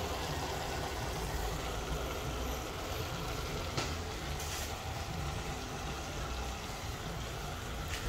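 Steady low rumble with a hiss over it from a pan of shredded cabbage and carrots cooking on the stove, with a light click about four seconds in.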